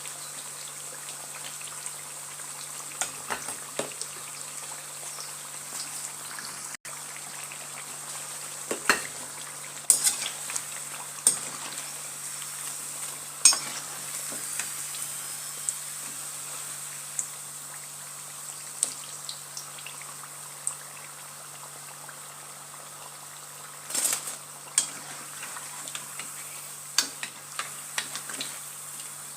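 Batter-coated potato slices deep-frying in hot oil, a steady sizzle, with scattered sharp clicks and knocks of a utensil against the pan.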